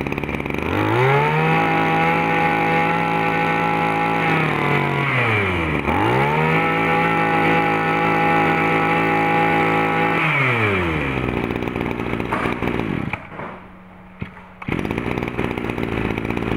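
Maruyama two-stroke brush cutter engine revved to full throttle twice, each time held high for about four seconds with a quick dip between, then dropping back to idle.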